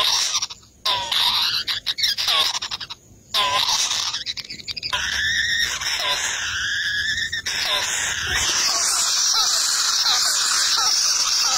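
Kingfisher nestlings begging for food with high-pitched squealing calls. The calls come in short bursts at first, then merge into an unbroken, harsh screeching from about three seconds in, while an adult feeds them.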